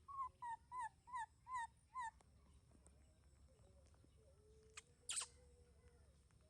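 Baby monkey giving a quick run of six short, high whimpering calls, each bending down in pitch at its end, about two and a half a second. About five seconds in come a click and a short high rustle.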